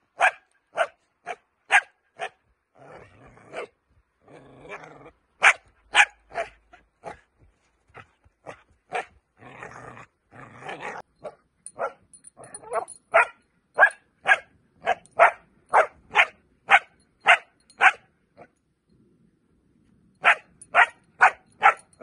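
Five-month-old puppy barking over and over in short sharp barks, about two a second, out of frustration at wanting the toy. The barks are twice broken by a couple of seconds of rougher, noisier sound, and pause briefly near the end.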